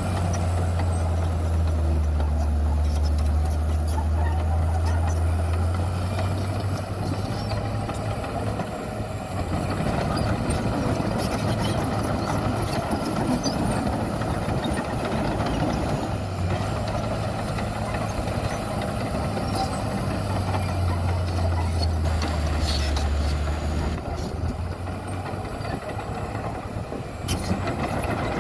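Heavy diesel earthmoving machinery running steadily. A deep engine drone swells for the first several seconds and again in the middle, over a constant rumble.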